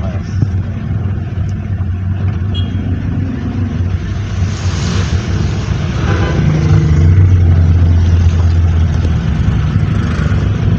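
Road vehicle engine and road noise: a steady low rumble under a hiss that grows louder about six seconds in and stays up for a few seconds.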